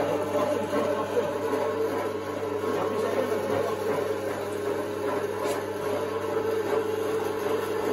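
Alveored electric meat grinder running steadily under load, its motor humming as it minces chunks of meat.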